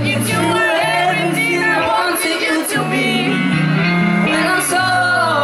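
A woman singing live into a microphone over a band, with held bass notes underneath and cymbal strokes.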